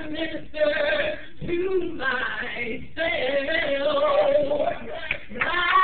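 A woman singing into a microphone, holding long wavering notes with short breaks between phrases.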